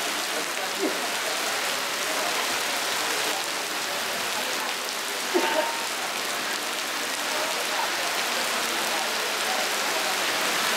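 Heavy rain pouring down, a steady even hiss of drops on the ground and surfaces. A brief short sound stands out about five seconds in, with a fainter one about a second in.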